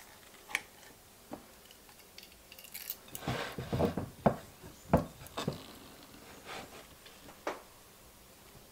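Metal ice cream scoop scraping and digging through hard-frozen ice cream in a glass bowl, with scattered light clicks and knocks of metal against glass. A longer stretch of scraping comes about three seconds in.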